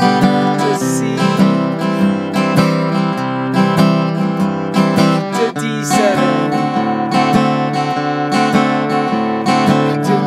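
Acoustic guitar flatpicked in a steady rhythm: a single bass-note pluck, then up-down-up strums, then an alternate bass note and up-down-up strums, repeating. It runs through a chord progression in the key of G, with a chord change about six seconds in.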